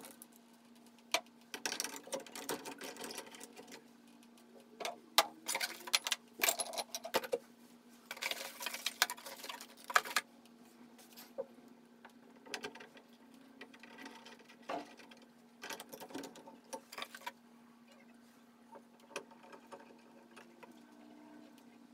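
Irregular clicking and rattling of hand tools and metal faucet parts as a tub faucet stem is fitted into the wall valve, busiest in the first half and thinning out near the end, over a steady low hum.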